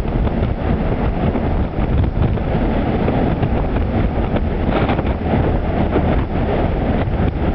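Strong storm wind buffeting the microphone in a continuous loud rumble, with the rush of rough sea beneath it.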